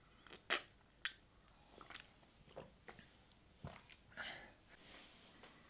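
Faint mouth sounds of drinking from a mug: sips and swallows, with two sharp clicks half a second apart near the start and a soft breath about four seconds in.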